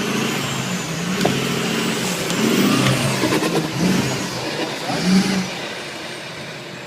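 Off-road 4x4's engine revving and easing off, with scattered knocks and clatter.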